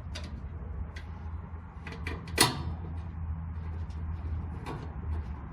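Scattered light clicks and knocks of hands working parts of the dryer and fitting a screw, the loudest about two and a half seconds in, over a steady low hum.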